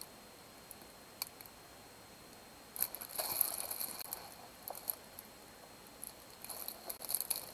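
Clear plastic packaging of a diamond painting canvas crinkling as it is handled and turned over, in two spells: from about three seconds in, and again near the end.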